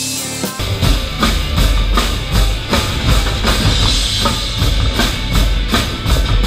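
Live rock band with a drum kit playing a driving beat: dense bass drum and snare strokes under cymbal wash. A heavy low end kicks in about half a second in.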